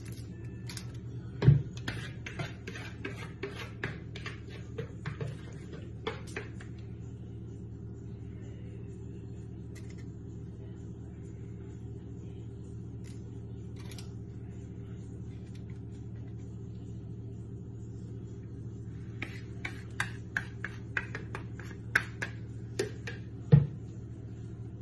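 Metal kitchen tongs clicking and tapping against a foil-lined metal roasting tray as chicken pieces are moved about, with two louder knocks, one about a second and a half in and one near the end. A steady low hum runs underneath.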